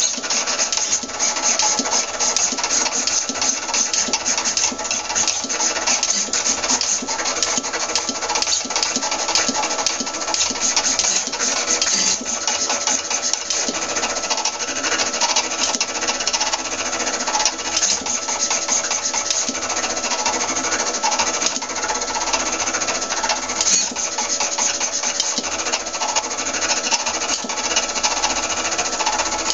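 DPX-2000 pen plotter running, its motors driving the arm and pen carriage across the sheet with a steady, dense buzzing rattle that never pauses.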